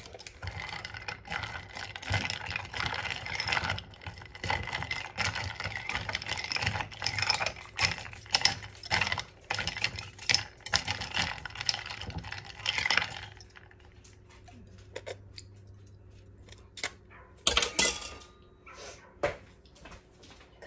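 Metal wire whisk stirring a tall cup of iced milk tea, its wires rattling and clinking against the ice and the side of the cup; the stirring stops about thirteen seconds in. A short loud clatter follows near the end.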